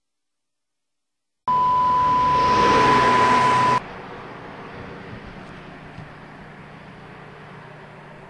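Radio alert tone: a single steady beep over static starts abruptly about a second and a half in and cuts off sharply about two seconds later. After it comes the quieter hiss and low hum of an open radio channel, typical of a police dispatch alert sent ahead of a priority call.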